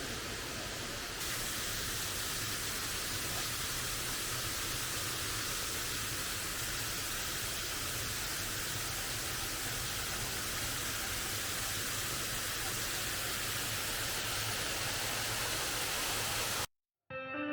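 Steady rush of a small waterfall's falling water, a little louder about a second in, cutting off suddenly near the end.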